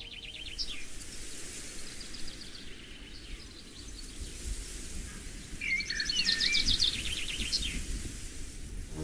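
Outdoor ambience with small songbirds singing: quick high trilled phrases, loudest about six to seven seconds in, along with a few whistled notes, over a low steady rumble.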